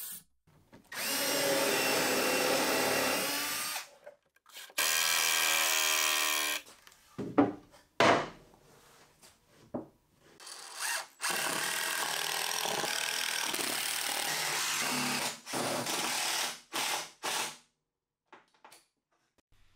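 Power drill driving pocket-hole screws into Baltic birch plywood, in several separate runs: one of about three seconds, a shorter one that rises in pitch as the motor speeds up, a few knocks, a longer run of about five seconds, then a few short bursts.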